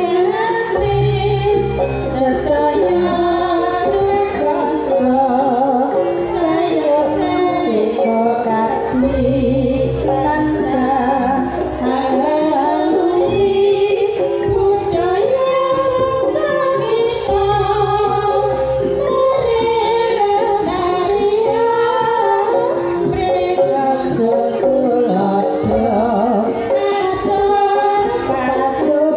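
A group of women singing together, one voice led through a microphone and PA, with wavering held notes. A deep low sound comes in for a second or two about every eight seconds beneath the voices.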